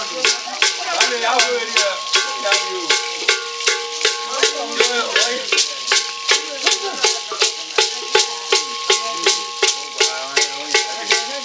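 Ceremonial dance music: a rattle shaken in a steady, even beat of about three strokes a second, with voices singing over it.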